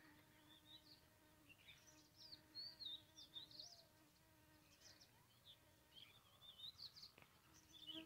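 Faint outdoor ambience: small birds chirping in quick notes that sweep up and down, busiest about two and a half seconds in and again near the end, over a faint steady buzz that comes and goes.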